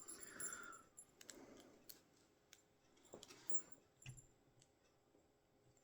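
Faint, scattered metallic clicks and scrapes of a shim being worked into a handcuff to open it.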